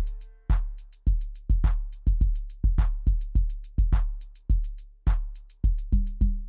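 Music: a drums-only break in a song, a deep bass drum hit about twice a second with crisp ticks of hi-hat or snare between. Short low pitched notes join in near the end.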